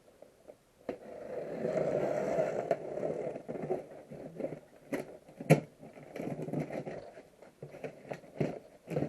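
A taped cardboard box being opened by hand: a long rasp of packing tape or cardboard being torn early on, then scraping and handling of the cardboard with a few sharp knocks.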